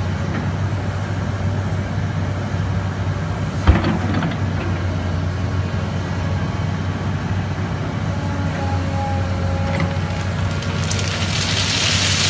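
Excavator's diesel engine running steadily, with one sharp knock about four seconds in. Near the end, crushed stone pours out of the bucket around the seepage pit with a growing rush of gravel.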